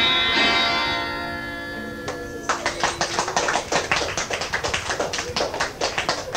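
The last chord of a live song rings out and fades. About two and a half seconds in, a small audience starts clapping.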